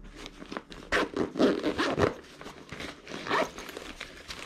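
Zipper of a fabric camera shoulder bag's small top pocket being pulled open in a few uneven strokes, the strongest about a second in.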